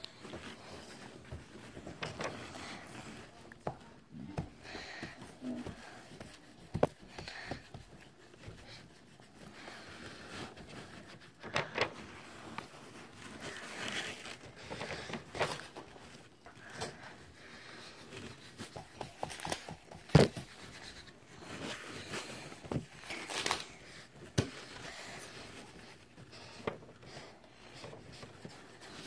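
Bingo dauber's felt-sponge tip being dragged across paper and dabbed down on it: irregular soft scrapes and light taps, with one sharper knock about two-thirds of the way through.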